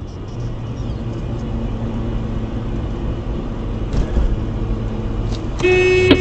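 Steady low rumble of engine and road noise inside a moving car as a bus pulls in close alongside. A horn sounds loudly near the end.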